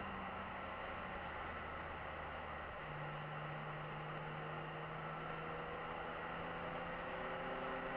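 Car engine and tyre/road noise heard from inside the cabin on a dashcam's microphone, a steady drone with a shift in engine pitch about three seconds in and a slow rise in pitch after it as the car accelerates.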